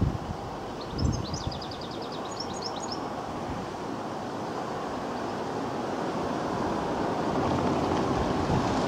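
Distant LMS Royal Scot class three-cylinder steam locomotive approaching, a low rumble that grows steadily louder. Wind buffets the microphone with low thumps at the start and about a second in, and a small bird trills early on.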